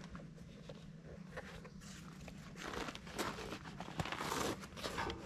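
Rust being scrubbed off steel by hand: irregular scratchy scraping that grows busier about two seconds in, over a low steady hum.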